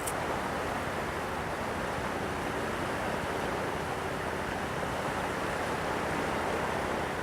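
Steady wash of sea surf with wind, an even hiss with no clear wave swells. A brief faint click right at the start.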